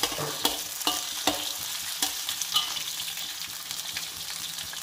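Beef pieces, sliced onion and garlic sizzling in olive oil in a steel wok while being stir-fried. A metal slotted spatula scrapes and clacks against the wok every half second or so over a steady frying hiss.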